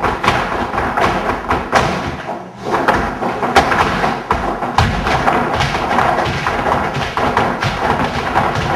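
Flamenco dancers' shoes tapping and stamping on a wooden floor in quick, dense footwork, over flamenco music. The footwork drops away briefly about two and a half seconds in, then picks up again.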